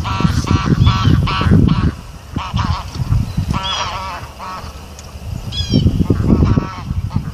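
Geese honking, a run of short repeated calls that thins out around the middle and picks up again near the end, over a steady low rumble.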